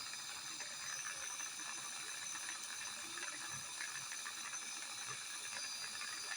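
Jeweler's torch flame hissing steadily while melting small pieces of half-round wire into little balls.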